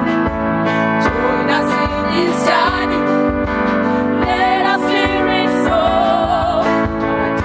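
Gospel music: sustained keyboard chords over a steady drum beat, with a voice singing wavering runs.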